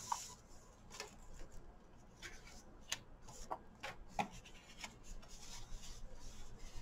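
Sheets of card stock and designer paper handled and shuffled on a craft mat: faint rustling with scattered soft taps and ticks as the pieces are picked up and laid down.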